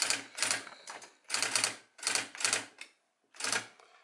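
Triumph-Adler SE310 electronic daisy-wheel typewriter printing bold text. There are five short bursts of rapid strikes, each lasting a fraction of a second, with brief pauses between words.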